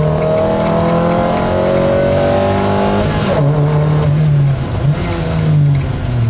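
MG F's four-cylinder engine heard from inside the cabin at full rally pace: its pitch rises steadily under acceleration for about three seconds, then drops sharply as the revs fall. It then runs at lower revs with a couple of brief dips as the car slows toward a turn.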